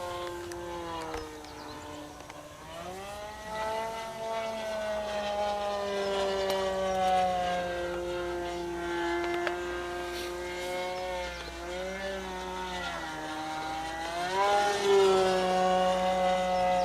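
Radio-control model airplane's small engine running in flight, its pitch rising and falling smoothly several times as it throttles and passes by.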